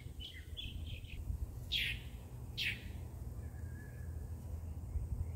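Birds calling: a few short chirps, then two sharp down-slurred calls about a second apart, over a steady low background rumble.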